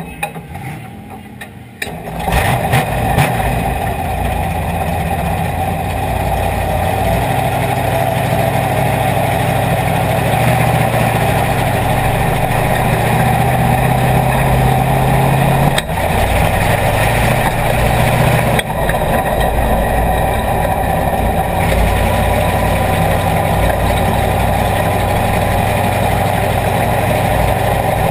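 A race car's engine, heard from inside the cockpit, firing up about two seconds in, then running steadily near idle with small rises and dips in engine speed as the car rolls off.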